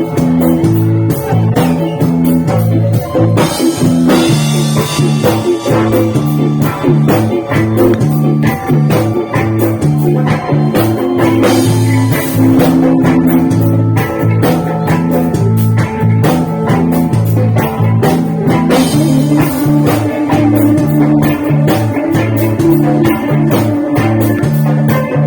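Loud guitar-led band music with a heavy, changing bass line and a steady drum beat, played through a sound system for a sound check.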